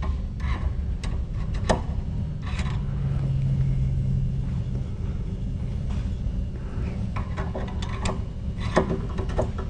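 Hand reamer being turned by a bar wrench through the steel hinge-pin hole of a side-by-side shotgun action clamped in a vise, enlarging the hole for an oversize hinge pin: scattered light clicks and scrapes over a low steady rumble.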